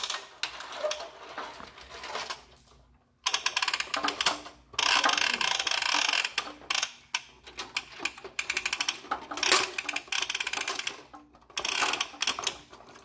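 Plastic toy playset's tower lift mechanism running with rapid, even clicking and rattling, in stretches with short pauses. It starts in earnest about three seconds in, after a brief quiet moment.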